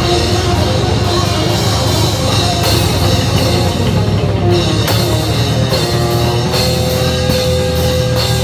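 Live rock band playing loud, steady music: electric bass, electric guitar and drum kit, with a long note held through the last two seconds.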